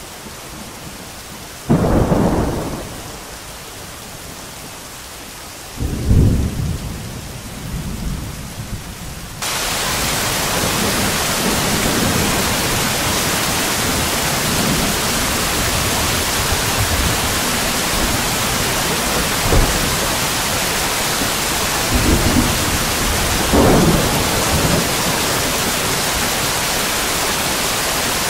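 Rain with thunder. A sudden thunderclap comes about two seconds in and a longer rumble around six seconds. About nine seconds in the rain abruptly turns much heavier, and more low rumbles follow near the end.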